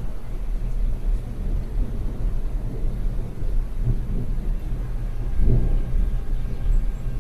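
Thunder rumbling low and rolling during a rainstorm, swelling twice, around the middle and again more strongly a little later.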